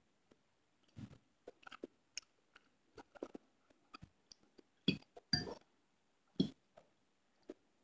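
Metal fork stirring and lifting noodles in a ceramic bowl: irregular soft clicks, knocks and short scrapes as the tines strike the bowl, a few with a brief ring. The loudest clinks come between about five and six and a half seconds in.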